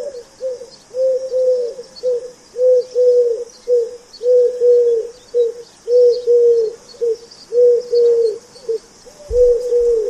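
Pigeon cooing in a steady rhythm of low phrases, one about every second and a half to two seconds, each a short note followed by longer ones. A faint high hiss lies under it.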